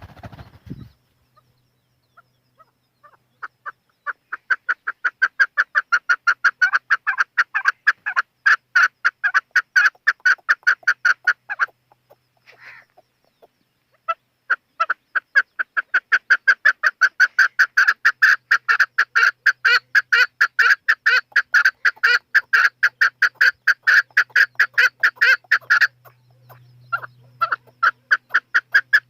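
Chukar partridge calling: long runs of rapid, repeated clucking 'chuk' notes, several a second, in two long bouts with a pause of about two seconds between them, starting up again near the end.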